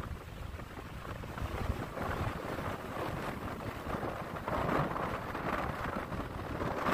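Gusty storm wind buffeting the microphone over the rush of heavy surf.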